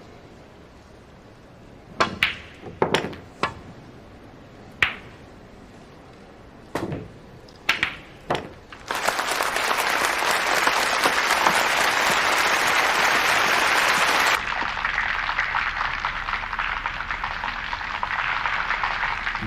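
A string of sharp clicks of billiard balls being struck and knocking together, about a second apart. Then, about halfway through, an audience breaks into applause, loudest for some five seconds and continuing more quietly after that.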